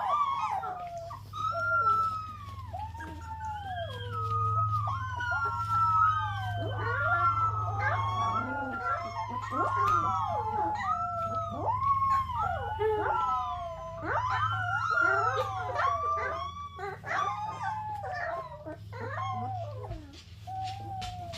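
Golden retriever puppy howling, a long string of short rising-and-falling howls and whines that run almost without a break, over a steady low hum.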